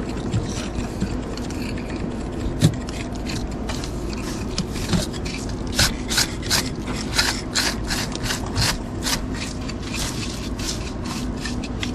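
Stiff-bristle hand brush scrubbing over fresh mortar joints between river-rock stone veneer: a quick series of brushing strokes, about two to three a second, as the excess mortar is brushed off to finish the joints. A steady low hum runs underneath.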